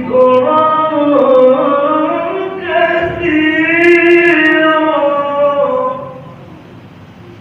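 A reciter chanting the Qur'an in the melodic qira'ah (tilawah) style, drawing out long ornamented notes that bend in pitch. The voice stops about six seconds in, leaving a low steady hiss.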